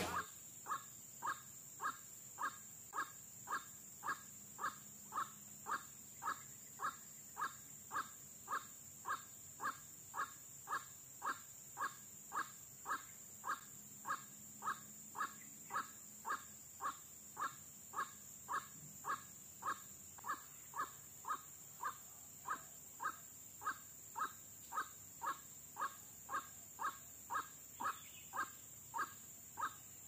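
White-breasted waterhen (ruak-ruak) lure call: a long, machine-even series of short calls, about two and a half a second. A faint steady high hiss lies underneath.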